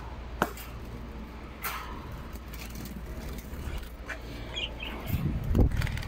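Handling noise from nest boxes and cage wire being opened and moved by hand: a sharp click about half a second in, a smaller knock near two seconds, and rubbing and bumps near the end.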